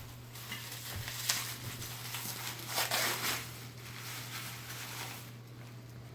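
Rustling and light handling noises as packaging is opened and grinder parts are taken out, strongest about a second in and again near the middle, over a steady low hum.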